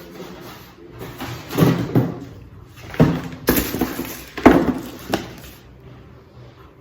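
Opening a delivery package by hand: a string of sharp rustles, scrapes and knocks from the packaging, bunched in the middle few seconds.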